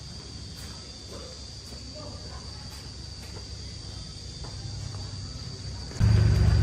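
A steady high insect trill, like crickets, over a low hum with faint ticks. About six seconds in, a much louder low rumble starts suddenly.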